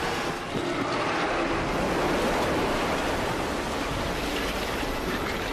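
Rushing water: a steady, even noise with no distinct beats or tones.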